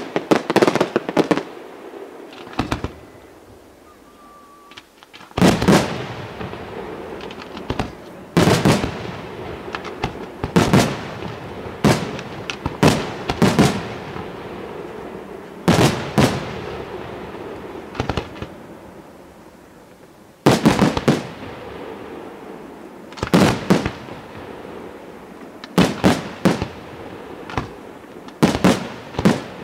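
Aerial firework shells bursting in a pyrotechnic display. Sharp booms come every one to three seconds, with a crackle of burning stars between them. The bursts pause for a few seconds shortly after the start, then resume and cluster more densely near the end.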